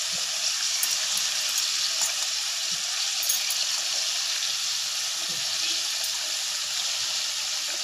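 Mint and coriander leaves, with tomatoes and green chillies, sizzling in hot oil in a metal pan as they wilt: a steady hiss with a few faint ticks.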